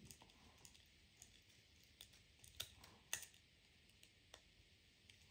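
Faint, sparse clicks of split-ring pliers and metal hooks as a split ring is worked open and the leader and hooks are passed onto it, the sharpest click a little after three seconds in.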